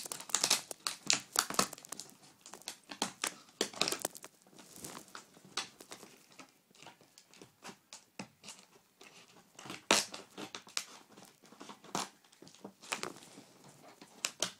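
Clear plastic packaging crinkling and tearing as it is cut and pulled apart by hand: a dense run of irregular crackles at first, thinning out later, with a few sharp snaps about ten and twelve seconds in.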